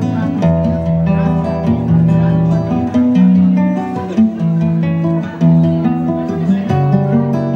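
Acoustic guitar playing a continuous tune, plucked and strummed, with a moving line of low notes under the chords.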